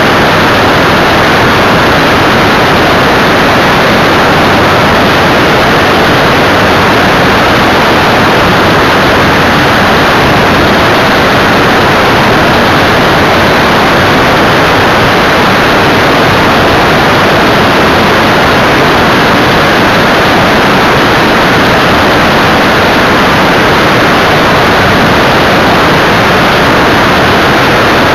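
Steady, loud rush of airflow over a tail-mounted camera on an Evektor Eurostar ultralight in cruise flight, with the engine and propeller noise blended into it.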